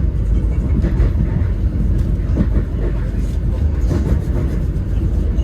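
Passenger train running on the rails, heard from on board: a steady low rumble with a few faint clicks.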